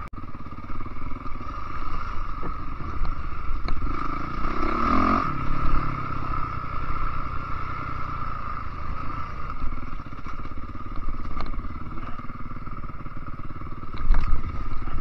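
Enduro dirt bike engine running steadily under the rider on a rough forest trail, swelling briefly about five seconds in and louder again near the end. Short knocks and clatter come from the bike over the bumpy ground.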